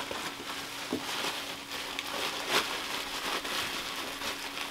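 Packaging crinkling and rustling as a baitcasting reel is unpacked, with a few sharp clicks.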